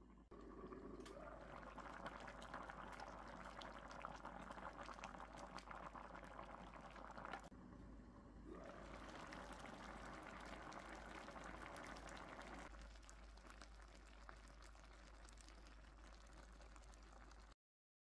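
Faint, dense crackle and pop of thick spicy red braising sauce bubbling as Korean braised radish simmers in a frying pan, with a single sharp click about seven seconds in. The sound cuts off shortly before the end.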